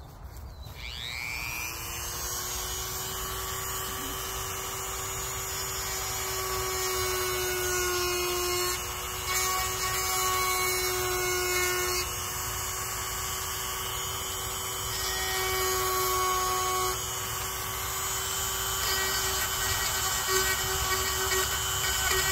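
Small handheld electric power tool spinning up, then running with a steady high whine over a hiss, its pitch and level shifting a little now and then as it works the fiberglass bumper repair.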